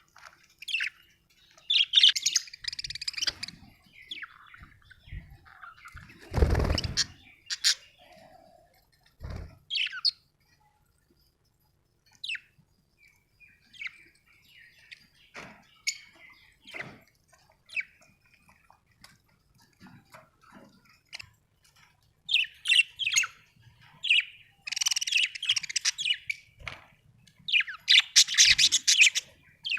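Budgerigars chirping and chattering in quick high bursts, busiest at the start and in the last third, with scattered single chirps between. A dull low thump about six seconds in and a smaller one a few seconds later.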